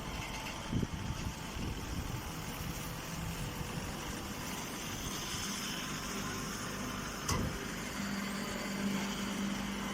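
Small square baler running while it bales corn stalks, with the steady sound of its driving engine. There is a knock about a second in and another about seven seconds in, and a steady low hum joins near the end.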